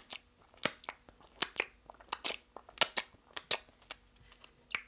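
A person chewing and eating close to the microphone: about a dozen sharp, irregular mouth clicks and smacks.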